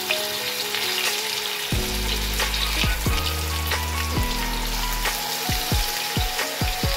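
Fish pieces sizzling as they go into hot oil and fry, the oil bubbling with a steady crackling hiss.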